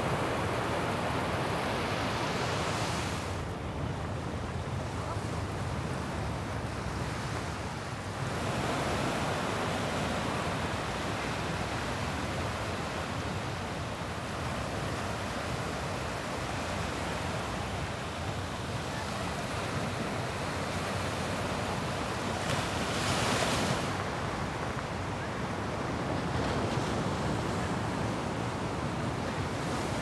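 Small waves breaking and washing up a sandy beach: a steady surf hiss that swells and ebbs, with one stronger wash about three quarters of the way through. Wind rumbles on the microphone underneath.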